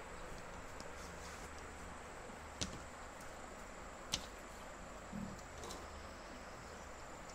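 Quiet room background with a faint steady high-pitched tone, broken by two sharp clicks about a second and a half apart.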